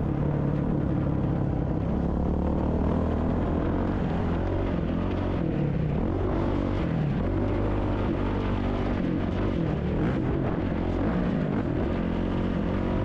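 450cc dirt bike engine revving up and down over and over as the bike is ridden through a rhythm section, its pitch rising and falling every second or so.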